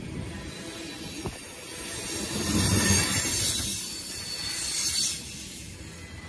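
Freight train of tank cars rolling past: a steady rumble of wheels on the rail that swells to its loudest about halfway through. One sharp click comes about a second in.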